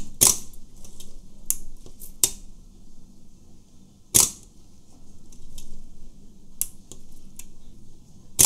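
Shutter of a 1960 Pentax S3 film SLR firing three times, about four seconds apart, each a sharp mechanical clack of mirror and cloth focal-plane shutter, with lighter clicks of the film advance lever cocking it in between.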